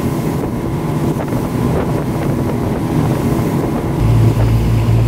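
Motorboat running at speed, with wind buffeting the microphone and water rushing past the hull. About four seconds in, a steady low engine drone becomes much stronger.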